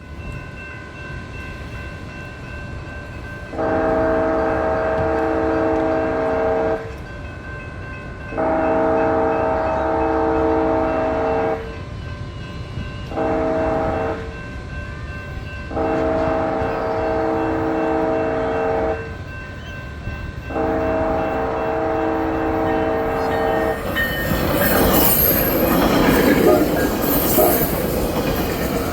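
Train's multi-note chime horn sounding five blasts (long, long, short, long, long), the grade-crossing warning as the train approaches. Near the end the train rushes past, with steel wheels squealing on the rails.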